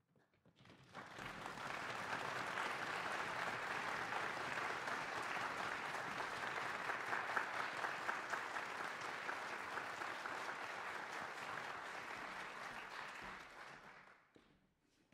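Audience applauding, swelling in about a second in and dying away near the end.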